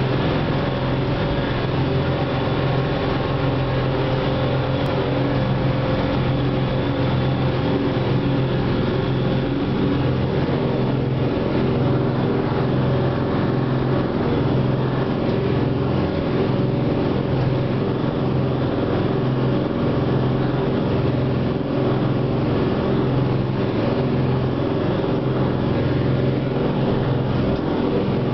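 Small ferry's engines running steadily at cruising speed: a continuous low drone of several held tones over a rushing noise of water and wind.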